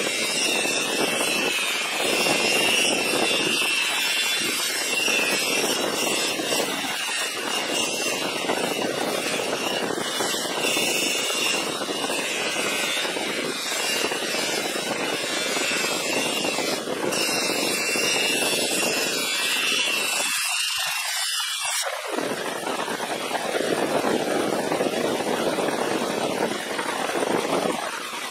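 Bench polisher motor running while a steel ratchet is pressed against the spinning buffing wheel: a steady high whine over a rushing hiss. About three quarters of the way through, the low part of the sound drops out briefly and the whine stops, leaving a steady rushing noise.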